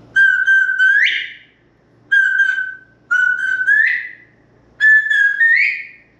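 African grey parrot whistling four separate phrases, each a held note that ends in an upward slide.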